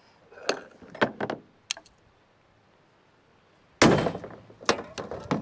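Several sharp metal knocks, the loudest about four seconds in, as a new universal-joint bearing cap is driven into the driveshaft yoke.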